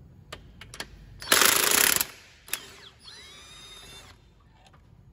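Cordless 1/2-inch impact wrench on a 21 mm socket, undoing an engine-mount nut: a few light clicks, then a loud burst of hammering lasting under a second, then a short whine that bends in pitch.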